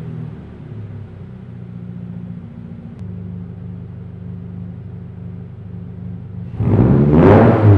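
2022 Subaru BRZ's 2.4-litre flat-four idling through a Tomei Expreme Ti titanium single-exit cat-back exhaust with a steady low note. About six and a half seconds in it is revved sharply, the pitch rising and starting to fall back.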